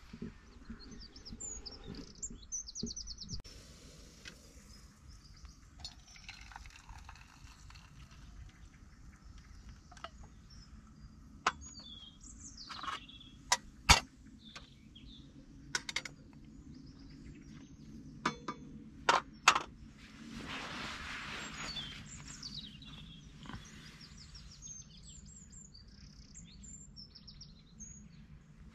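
Birds chirping throughout, with sharp metallic clinks in the middle stretch of a spoon stirring a drink in a metal mug, and a brief rushing hiss a little past the middle.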